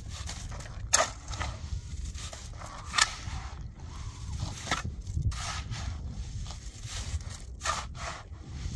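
Steel shovel scraping into a pile of concrete mix and tipping loads into a metal wheelbarrow, heard as sharp scrapes and knocks about a second in, near three seconds (the loudest) and near five seconds, with softer ones later, over a steady low rumble.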